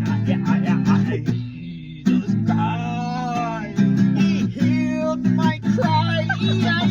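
Acoustic guitar strumming chords under a singing voice that holds long, wavering notes without clear words.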